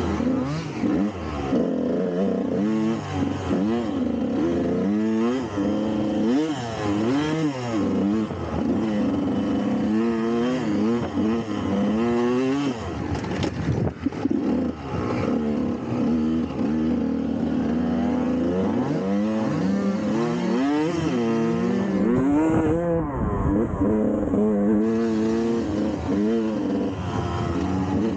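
Dirt bike engine under way, its pitch climbing and dropping over and over as the throttle is opened and closed and it shifts gears, with a brief knock and dip about halfway through.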